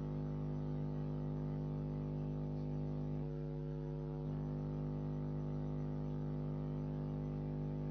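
Steady electrical mains hum, a low buzz made of several even tones; for about a second near the middle its tone shifts slightly, then it returns.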